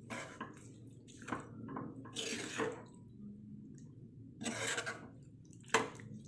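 Spatula stirring boiled kidney beans through thick masala in a kadhai: a series of short, wet squelching and scraping strokes, about six of them.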